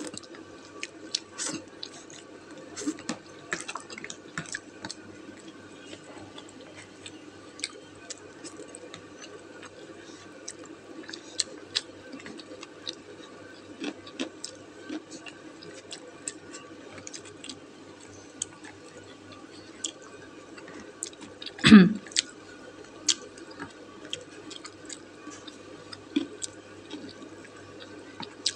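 A person eating wonton noodle soup: chewing and slurping, with scattered small clicks of chopsticks against the steamer pot. One much louder thump comes about three-quarters of the way in, over a faint steady hum.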